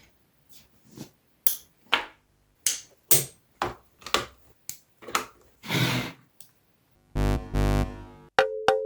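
Soda sound effects: a run of sharp clicks and short hisses about every half second, a longer fizzing hiss around the six-second mark, then a loud buzzing tone lasting about a second, followed by a few more clicks with a short ringing tone near the end.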